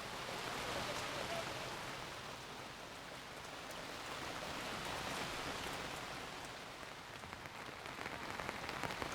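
Steady tropical rain falling, with fine ticks of individual drops striking a surface.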